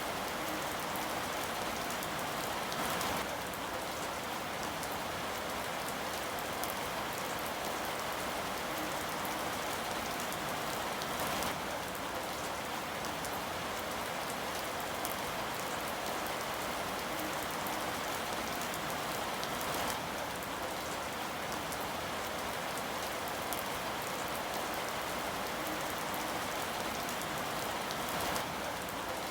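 Steady rain falling on a surface, an even patter with no thunder, swelling slightly for a moment about every eight seconds.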